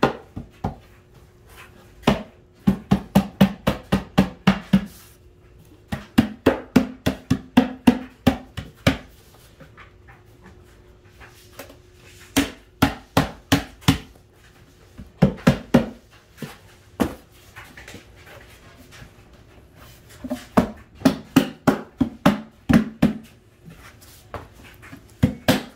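Hand blows knocking a melamine drawer-box panel down onto glued wooden dowels to seat the joint: quick knocks about four a second, in runs of a few seconds with short pauses between.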